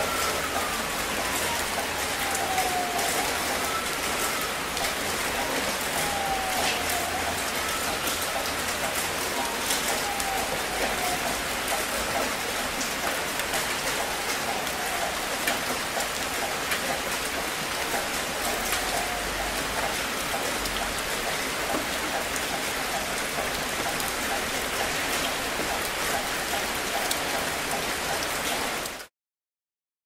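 Steady rain falling, with scattered drops ticking, and a distant ambulance siren wailing in slow falling sweeps, one every few seconds, that fade away about two-thirds of the way through. The sound cuts off to silence a second before the end.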